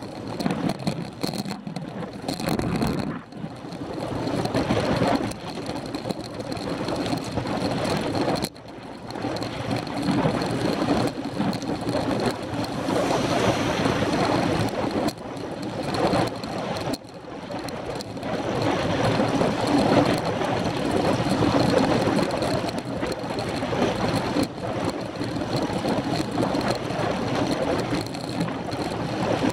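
Wind rushing over the camera microphone, with tyre and road noise from a bicycle riding at about 20 mph, rising and falling in level with a few sudden dips.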